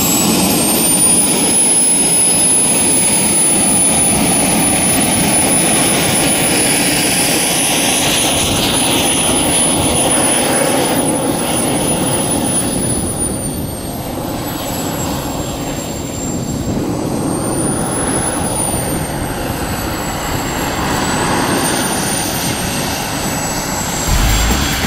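Model jet turbine of about 30 kg thrust in a large radio-controlled Mirage 2000, running at taxi power. Its high whine rises in pitch early on and holds steady. It drops back about halfway, then spools up and down twice, with a steady rushing exhaust underneath.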